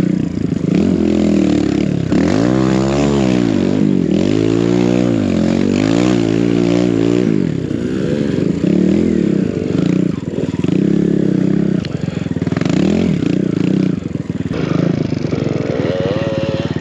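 Kawasaki KLX140 single-cylinder four-stroke dirt bike engine, fitted with a BBR 170 cc big-bore kit and a BBR D3 exhaust, revving up and down over and over under hard throttle as the bike pushes through deep snow.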